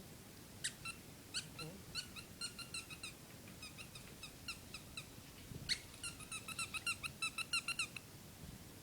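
Rubber squeaky ball squeezed over and over, giving short, sharp squeaks: a run of squeaks, a few fainter ones, then a quick run of about four squeaks a second near the end.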